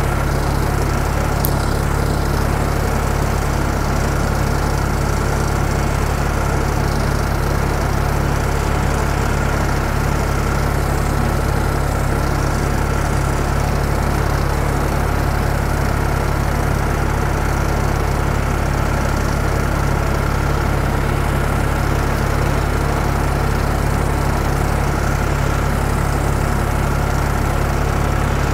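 A motor running steadily at one constant speed: a low, even drone with a thin steady whine above it.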